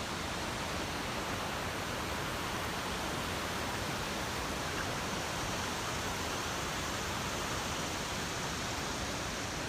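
Steady rush of river water flowing over rapids and falls on the New River, an even unbroken hiss with no changes.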